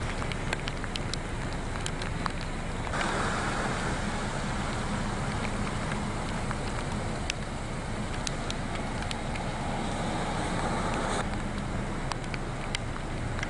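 Outdoor rain ambience: a steady hiss of rain mixed with distant traffic, with scattered sharp drip clicks. The hiss is louder about three seconds in and drops back about eleven seconds in.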